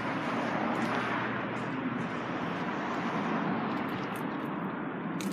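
Mitsubishi L200 pickup's engine idling: a steady, even running sound.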